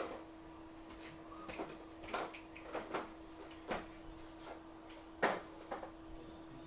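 Scattered faint clicks and taps of small tools being handled at a repair bench, the loudest about five seconds in, over a steady low hum.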